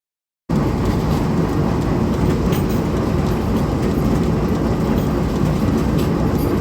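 Steady, loud machinery noise: a low rumble with a continuous rattle. It starts abruptly about half a second in.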